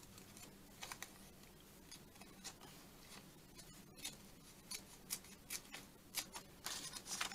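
Scissors snipping around a paper magazine cutout: faint, irregular small snips, a few at a time, with a quicker run of cuts near the end.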